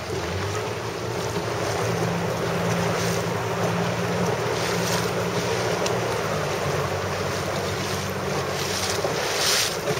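Wind buffeting the microphone over the rush and slap of water on a moving boat, with a faint low steady hum underneath. A louder rush comes near the end.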